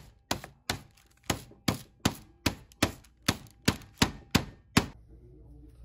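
Metal meat tenderizer mallet pounding a thin slice of beef through paper on a hard counter, flattening it for braciole: about thirteen sharp, even strikes, nearly three a second, stopping about a second before the end.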